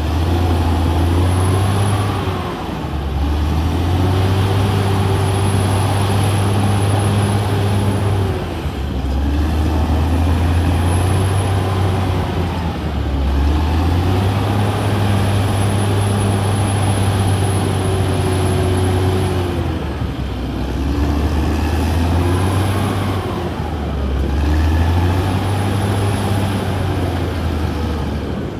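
Caterpillar D6R XL bulldozer's diesel engine working steadily, its pitch dipping and climbing back again about every four seconds, with a thin high whine that rises and falls with the engine.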